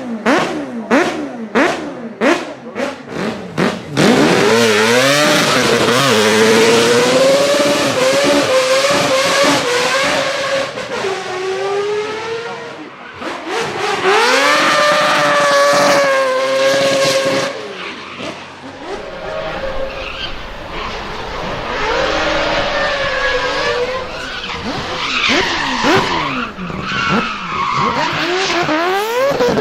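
Rotary-engined car drifting: a rapid string of sharp cracks about twice a second, then the engine screaming at high revs with rising and falling pitch over tyre squeal. The sound changes abruptly partway through to another rotary car revving while sliding.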